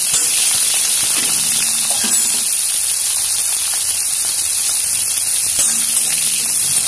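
Small onions frying in hot oil with mustard seeds in a steel kadai: a steady sizzle, with a light scrape of the stirring spoon near the start.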